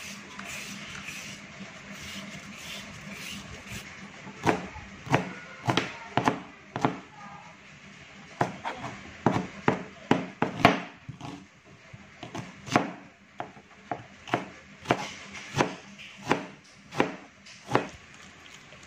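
A julienne peeler rasps along a carrot for the first few seconds. Then a kitchen knife chops the carrot shreds on a plastic cutting board: sharp, uneven knocks, about one or two a second, which stop just before the end.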